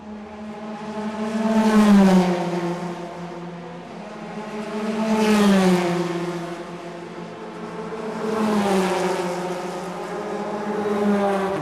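Racing-car engine passing by again and again, about every three seconds. Each pass swells to a peak and its pitch drops as it goes by.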